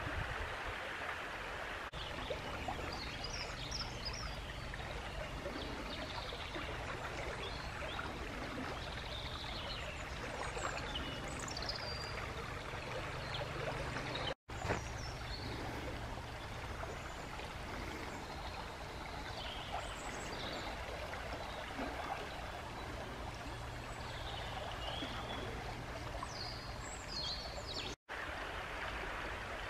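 River water flowing steadily, with birds chirping and singing on and off over it. The sound drops out for an instant twice, about halfway and near the end.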